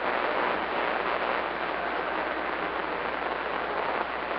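Steady hiss of open band static from a CB radio receiver, with no station transmitting.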